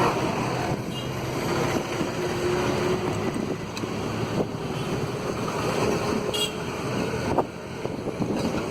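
A vehicle engine running steadily under way, with wind noise on the microphone.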